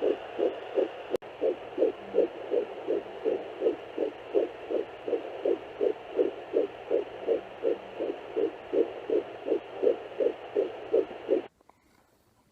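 Fetal heartbeat through a handheld fetal Doppler: a fast, even pulse of about two and a half to three beats a second over a steady hiss, the rate of an early (8–10 week) fetus rather than the mother. There is a sharp click about a second in, and the sound cuts off about a second before the end.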